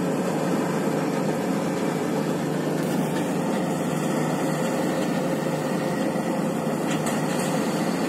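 Swaraj 8100 EX combine harvester running steadily while it cuts and threshes wheat: a continuous, even engine and machinery drone.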